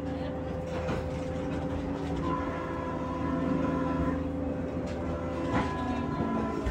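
Running noise inside a passenger train car: a steady low rumble with several held tones, and a higher tone joining about two seconds in.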